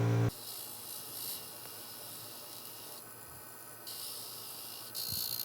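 A steady electric hum cuts off a fraction of a second in, leaving only a faint high hiss that shifts abruptly a few times.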